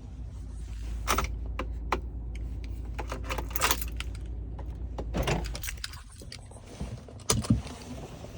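Keys jangling, with scattered clicks and short rattles and a few knocks near the end, over a steady low rumble that stops about six seconds in.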